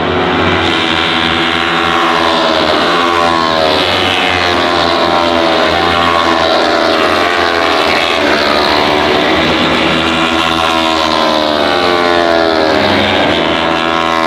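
Racing motorcycle engines heard from trackside, several pitches overlapping, rising and falling as the bikes accelerate and shift through the gears.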